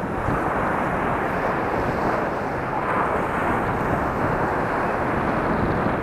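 Sea surf breaking on the shore: a continuous, muffled rush of waves with gentle swells in loudness.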